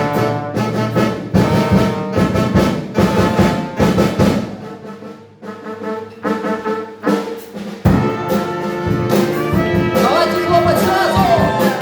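Brass-led instrumental music, the introduction of a song, in short punchy chords. It dips quieter around the middle, then swells into fuller held chords with a wavering melody line near the end.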